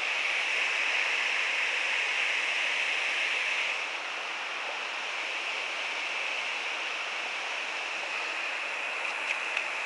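Steady rush of flowing river water, easing slightly about four seconds in.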